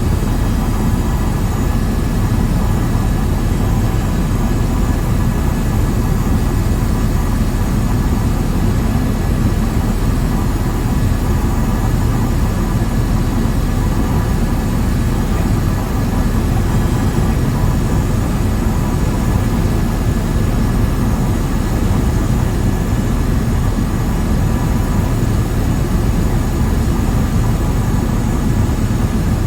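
Steady, loud engine and airframe noise inside the cabin of a small aircraft in flight.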